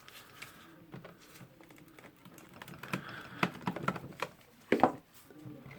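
Scattered light clicks and knocks of metal parts as the armature of a Bosch GBH 11 DE rotary hammer is worked loose and lifted out of its housing. The loudest knock comes near the end.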